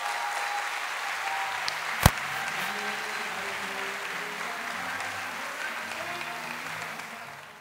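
Live audience applauding. There is one sharp knock about two seconds in, and the applause fades out near the end.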